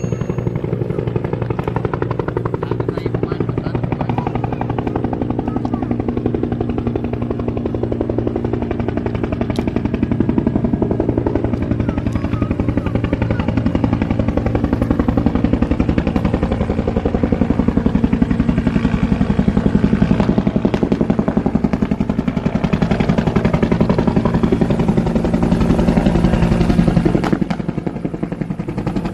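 Bell 212 helicopter running close by: a rapid, even beat of the two-blade main rotor over a steady engine drone, dipping briefly near the end.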